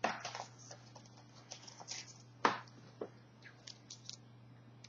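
Scattered light clicks, taps and rustles of a cardboard trading-card box and the card pack inside being handled and opened, with one sharper knock about two and a half seconds in.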